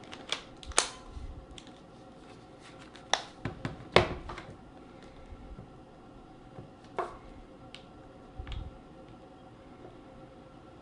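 Scattered sharp plastic clicks and knocks as a netbook's battery is slotted back in and the laptop is handled, about six in all, the loudest about four seconds in.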